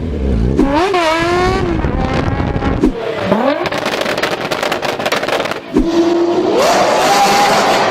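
Loud vehicle exhausts: engines blipped in sharp revs that rise and fall, then, about two thirds in, an engine accelerating hard with its pitch climbing steadily.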